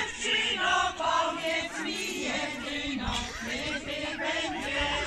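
A group of voices singing a song together, choir-style.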